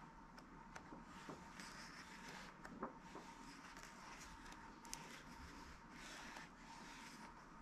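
Pages of a hardcover cookbook being turned by hand: faint paper rustling with a few soft ticks as the pages flip and settle, over a thin steady background tone.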